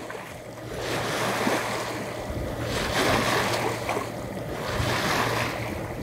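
Water rushing and splashing along the hull of a moving yacht, rising and falling in surges every couple of seconds, with wind on the microphone and a steady low drone underneath.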